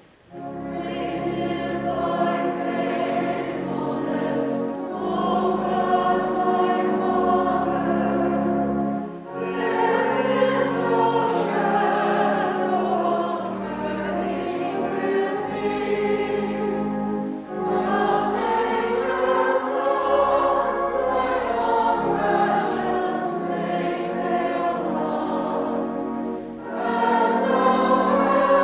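A small women's choir singing a hymn together. The long sung phrases are broken by short pauses about every eight or nine seconds.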